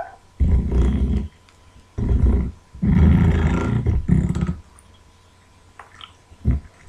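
A handheld coffee frother or whisk mixing a thick liquid mixture, running in short rough bursts: about a second, a shorter one, a longer one, and a brief one near the end.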